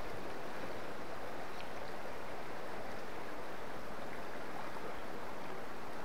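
River water flowing, a steady even rush.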